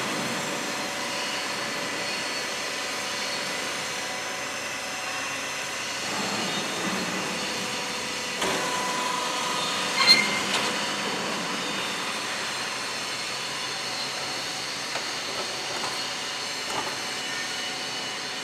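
A small mobile concrete block making machine running its electric motors with a steady hum. There is a metallic clank about ten seconds in, with a few lighter knocks later.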